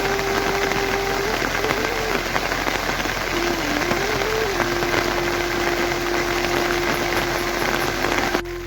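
Heavy rain pouring steadily, a dense hiss that cuts off suddenly near the end. A thin held tone that steps up and down in pitch runs over the rain.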